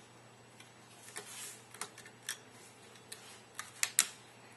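Small, irregular clicks and ticks of a screwdriver turning screws out of the body of an airsoft AK-47, metal tool on screw heads and receiver. The sharpest clicks come about four seconds in.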